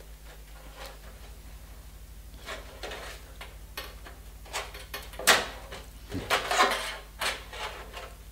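Plastic clips and aluminium LED backlight strips being pried off and handled on a TV's sheet-metal back panel: scattered clicks, scrapes and clatters, loudest about five seconds in and in a quick cluster just after.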